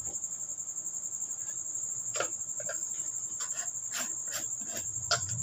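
A steady high-pitched trill, with a handful of short clicks and taps in the latter half.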